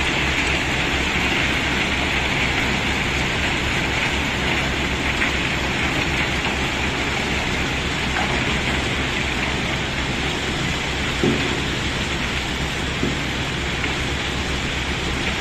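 A load of cobblestones pouring out as it is unloaded: a steady rattling rush of stone on stone, with two sharper knocks in the second half.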